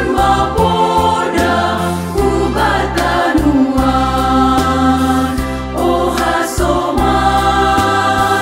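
A women's choir singing a hymn in parts over an instrumental accompaniment, its bass notes changing every second or so.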